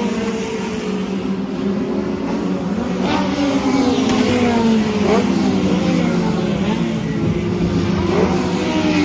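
Several classic racing touring cars through a corner on a wet track: engines falling in pitch as they slow for the corner, then revving up again as they accelerate out, several cars overlapping.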